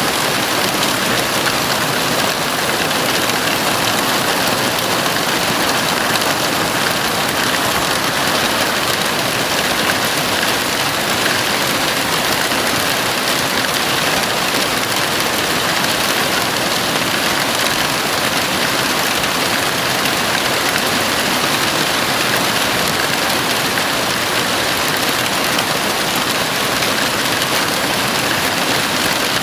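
Heavy rain falling steadily on a house roof, an even, unbroken rush of noise.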